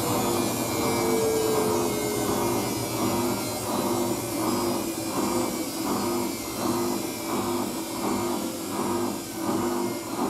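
Hoover DYN9144D3X washing machine spinning towels, the motor whine falling in pitch early on, then a rhythmic pulsing about twice a second as the drum turns.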